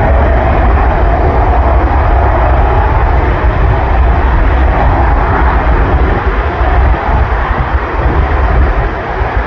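Propeller aircraft engines running loud and steady at takeoff power, with a deep rumble.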